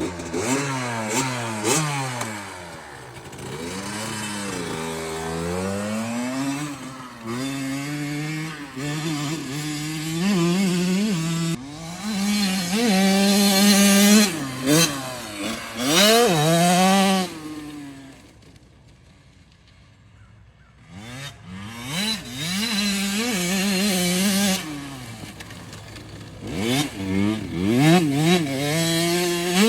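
Small dirt bike engine revving up and down over and over, its pitch climbing and falling as the throttle is worked. It dies away for a few seconds about two-thirds of the way through, then revs up again.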